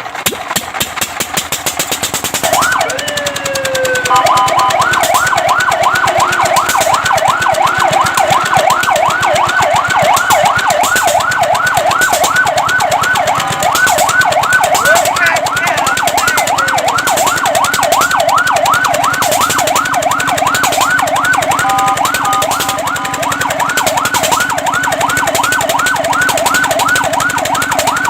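Fire truck electronic siren starting a couple of seconds in with a rising wail, then switching to a fast yelp of rapid up-and-down sweeps, about three a second, with a brief steady tone about three-quarters of the way through. A fast rhythmic pulsing comes before the siren starts.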